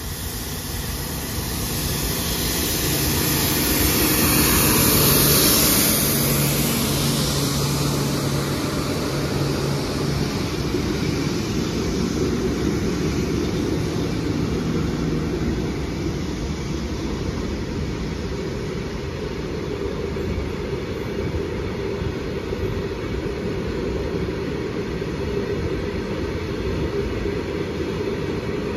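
Electric freight train passing close by: the lead pair of WAG-5 electric locomotives goes past with a steady hum, loudest about five seconds in. A second locomotive hums by again around fourteen seconds in, and a long rake of covered goods wagons rolls past steadily on the rails.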